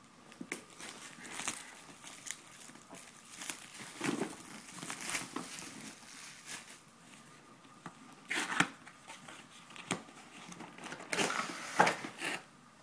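Clear plastic shrink wrap crinkling and tearing as it is pulled off a cardboard retail box, in irregular crackles that are loudest about two thirds of the way in and again near the end.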